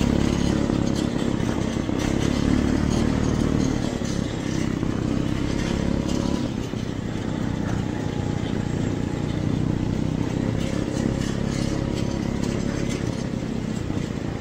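Engines of small Vaellan off-road snow vehicles running steadily while under way, with a slight dip in level about halfway through.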